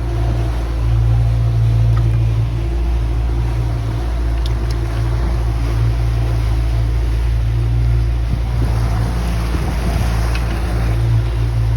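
An engine running steadily with a constant low hum and no change in pitch.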